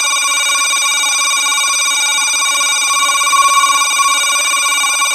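Pigeon-training sound-effect clip played through the controller's loudspeaker: a steady, buzzy electronic tone held without a break.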